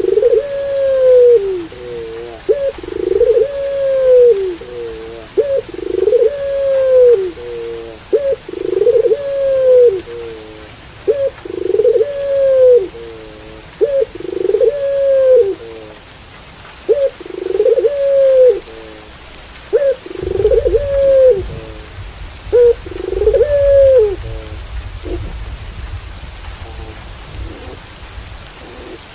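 Puter pelung dove, a domestic Barbary dove kept for its coo, giving its coo over and over: a short note followed by a long arched one, every two to three seconds. The cooing stops about twenty-four seconds in, and a low rumble comes in from about twenty seconds.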